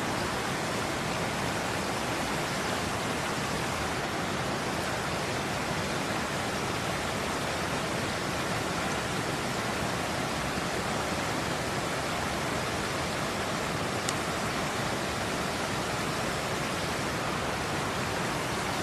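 River water rushing steadily, an even hiss with no let-up, with one faint click about fourteen seconds in.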